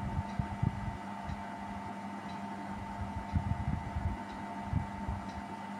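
Steady background hum, with faint ticks about once a second and a few dull low bumps.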